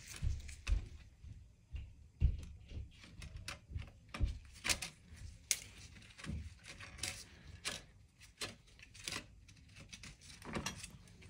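Clutch plates of a ZF 8HP55 automatic transmission clicking and clinking irregularly as they are handled and fitted into a clutch pack.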